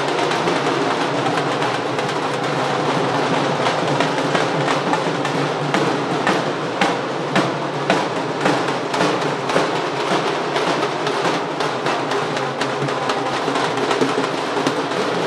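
Dhol drums beaten with sticks in a fast, steady stream of beats, over the din of a dense crowd.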